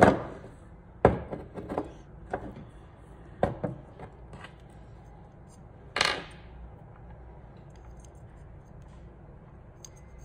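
Small metal parts of a motorized ball valve's actuator clicking and clinking as they are handled and the pin is taken off: a string of sharp knocks in the first few seconds and a louder metallic clatter about six seconds in.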